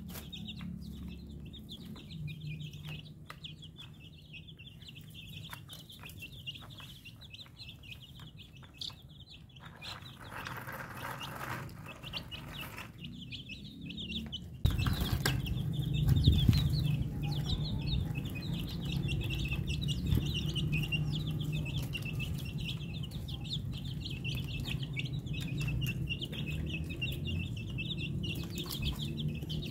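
A flock of young chicks peeping continuously, many quick high-pitched cheeps overlapping. A low rumble underneath gets suddenly louder about halfway through.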